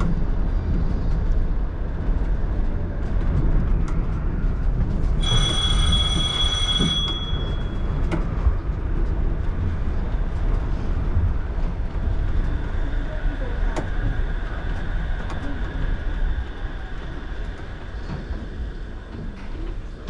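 Shonan Monorail suspended monorail car running, a steady rumble of its rubber tyres and drive. About five seconds in, a high ringing tone sounds for about two seconds. A faint whine comes in later as the level eases off, the car slowing for a station.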